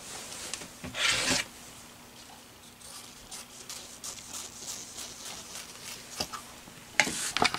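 Scissors cutting through fabric: a run of short crisp snips, denser and louder near the end, with a louder burst of noise about a second in.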